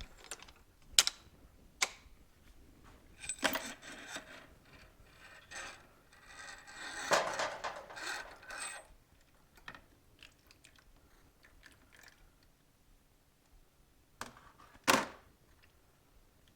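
Scattered clicks and knocks of metal parts being handled, with a stretch of rubbing and scraping about seven seconds in, as a motorcycle's spring-loaded shock absorber is taken apart; the loudest knock comes near the end.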